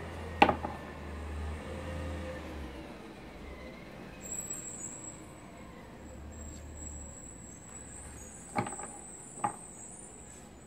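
Tarot cards being handled and fanned through by hand, with a sharp tap about half a second in and two softer clicks near the end, over a low rumble.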